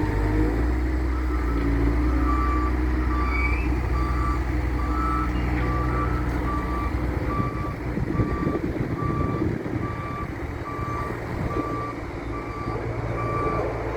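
Reversing alarm of a loader beeping steadily, a little over once a second, over its diesel engine running. For the first half a second alarm at a slightly higher pitch beeps alongside it.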